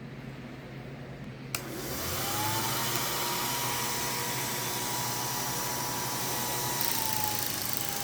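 A click, then a Revere Model 80 8mm film projector's motor spins up and runs with a steady whir and a whine. The whine rises as it comes up to speed and sags slightly in pitch near the end.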